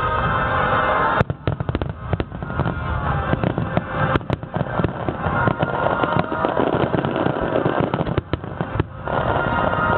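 Aerial fireworks bursting one after another with crackling, over music played for the show, recorded on a compact camera's microphone.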